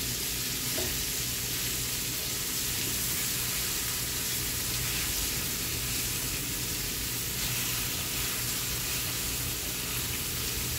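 Flour-coated beef cubes frying in hot olive oil in a cast-iron skillet: a steady sizzle as they are turned with tongs.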